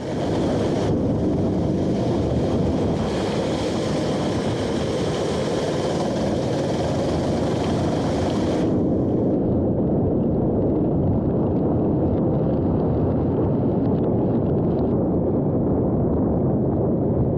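Go-kart engine running on the throttle, heard from an onboard camera through a dense rush of wind and rain noise on the microphone. About halfway through the sound turns duller and more muffled.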